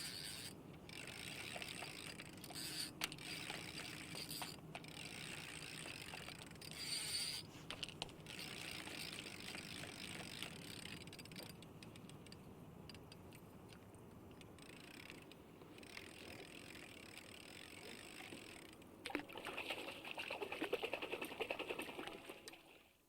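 Fishing ambience: a fishing reel's ratchet clicking over a background of lapping water, with a louder spell of rapid reel clicks near the end that stops suddenly.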